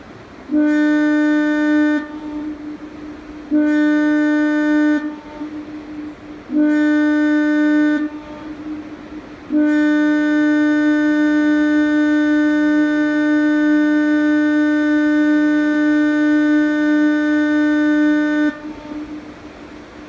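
Cabo Estay foghorn sounding three short blasts of about a second and a half each, then one long blast of about nine seconds: a steady low tone with a fainter echo trailing after each blast.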